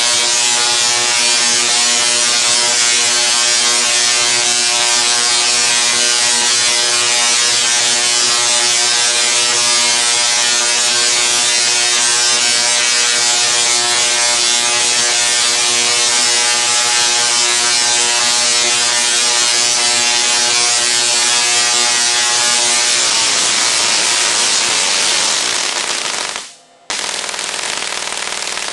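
SIDAC-driven Tesla coil running from a pole transformer and throwing long arcs: a loud, steady buzzing crackle with a pitched hum in it. Near the end the hum fades, the sound cuts out for about half a second, then comes back quieter and rougher.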